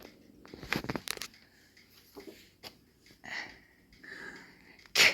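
Soft rustling and handling of a paper greeting card, with scattered small clicks and a sharp tap near the end.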